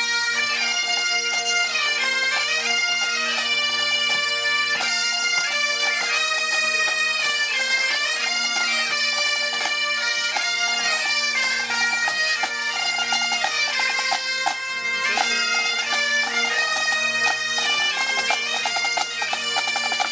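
A band of Highland bagpipes playing a lively tune, the chanters' melody moving over the steady hum of the drones.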